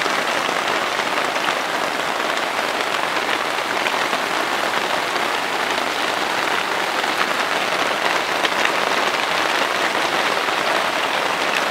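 Heavy hail coming down hard on a lawn, trees and fencing: a steady, dense hiss of countless small impacts with faint scattered ticks.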